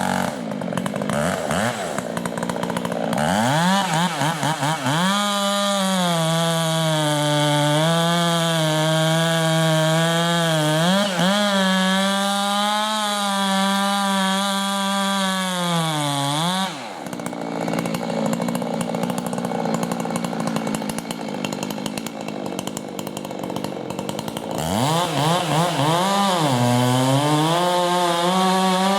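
Two-stroke chainsaw cutting wood at full throttle, its pitch wavering under the load. About 17 s in it drops back to idle, then revs up again about 25 s in.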